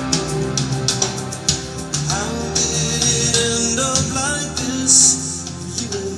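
A recorded song with guitar and a singing voice, played from a phone through a Sansui A-5 integrated amplifier and loudspeakers as a test of the amplifier.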